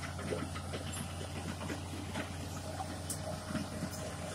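Hitachi Zaxis crawler excavator's diesel engine running at a steady idle, a constant low hum, with scattered light clicks and knocks over it.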